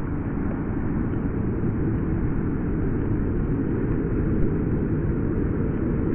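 Ocean surf breaking on a sandy beach, heard as a steady low rumble.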